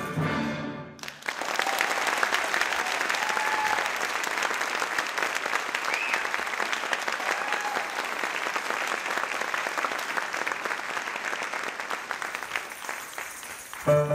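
Audience applauding after the dance music stops about a second in. Piano music starts again just before the end.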